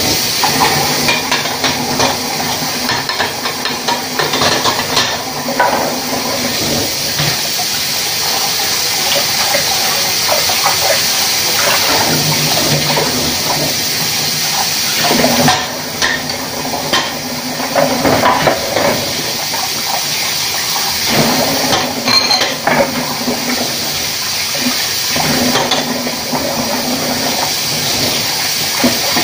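Tap water running steadily while ceramic plates and bowls are rinsed by hand, knocking against each other and the dish rack many times.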